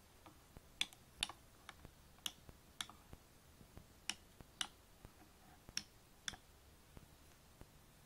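Push-button keys of a homemade 4x4 keypad clicking as a finger presses them one after another, about nine sharp clicks in the first six and a half seconds, several coming in pairs about half a second apart.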